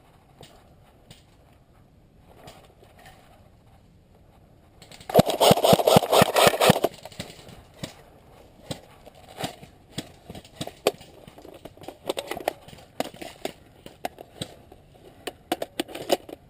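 Airsoft gun firing a rapid full-auto burst of just under two seconds, about five seconds in, followed by scattered light clicks and knocks of gear handling and movement.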